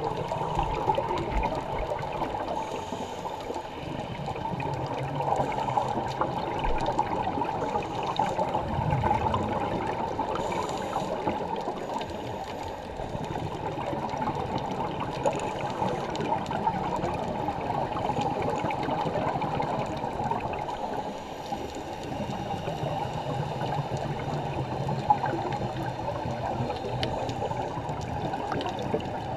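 Steady muffled underwater rush and crackle heard through an underwater camera, with the bubbling of scuba divers' exhaled air.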